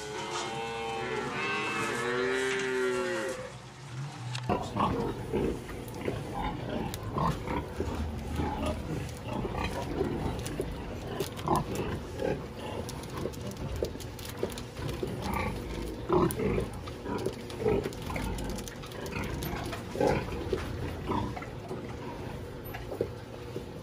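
A black-and-white dairy calf bawls, several rising and falling calls over the first four seconds or so. It cuts off suddenly, and then comes the steady din of a pig barn, with scattered short grunts and knocks.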